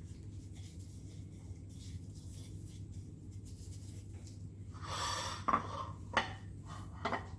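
Kitchen handling sounds over a steady low background hum: a short rustling scrape about five seconds in, then a few sharp clicks of dishes or utensils.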